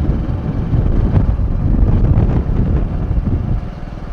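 Low rumble of a vehicle on the move, with wind buffeting the microphone.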